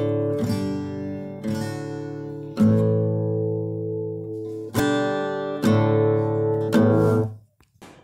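Background music of acoustic guitar chords, strummed roughly once a second and each left to ring out, stopping shortly before the end.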